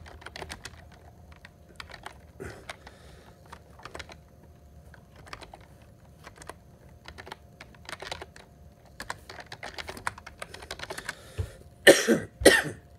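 Scattered key clicks of typing on a keyboard, looking something up. Two loud coughs near the end.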